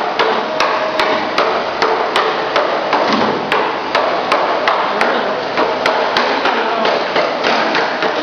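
Machinery knocking in a steady, even rhythm of about two to three sharp knocks a second, over a constant running noise.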